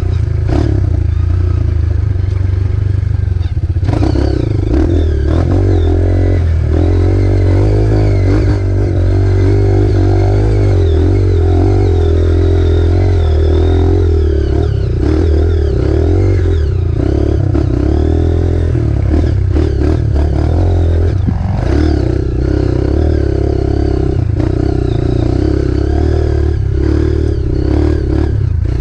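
Off-road trail motorcycle engine running continuously, its pitch wavering slightly with the throttle, with occasional knocks and clatter from the bike.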